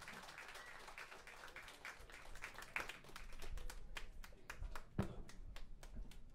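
Audience applauding, the clapping thinning out to scattered single claps over the last few seconds.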